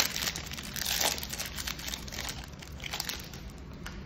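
Foil wrapper of a Magic: The Gathering draft booster pack being torn open and crinkled by hand, a dense crackling that is loudest in the first second or so and then thins out.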